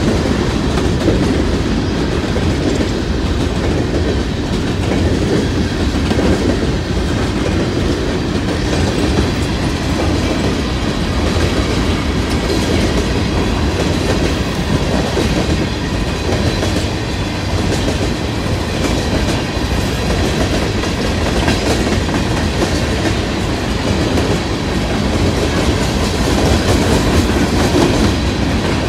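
BNSF freight train of coal hopper cars rolling steadily past: a continuous rumble with the clatter of steel wheels on the rails.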